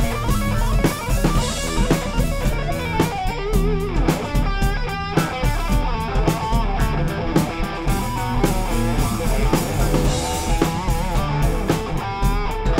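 A band jamming: guitars playing bent, wavering lead notes over bass guitar and a drum kit.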